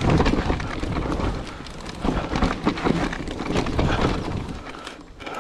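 Mountain bike riding fast down a rough dirt-and-rock trail: a steady rumble of tyres on the ground and wind on the microphone, with many sharp knocks and rattles as the bike hits roots and rock edges. It eases a little near the end.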